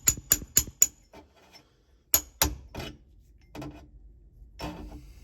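Hammer tapping a tight new shift-lever bushing into a Toyota W56 transmission shifter. There is a quick run of ringing metal blows, about four a second, then a pause. Two more sharp blows come a little after two seconds in, followed by a few lighter knocks.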